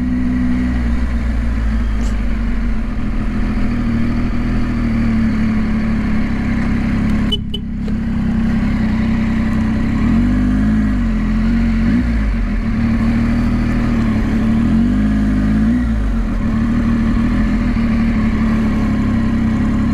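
Triumph Tiger 800 XCa's three-cylinder engine running at low road speed, heard from the rider's seat with wind noise over it. Its pitch swells up and back down twice in the second half as the throttle is opened and closed.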